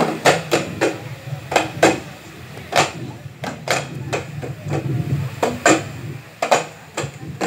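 Small hand-held frame drums struck by dancers: a dozen or so sharp, unevenly spaced beats, over a low steady hum.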